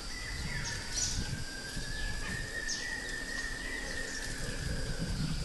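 Wild ambience of birds giving short, quick, falling chirps over a steady, slightly wavering insect drone, with a low rumble underneath.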